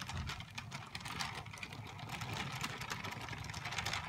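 Lego train cars rolling along plastic Lego track, their plastic wheels clattering and clicking busily over the rails.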